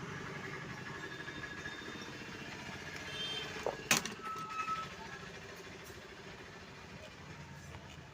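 Steady low background noise with faint hums, broken by a single sharp click about four seconds in and a short tone just after it.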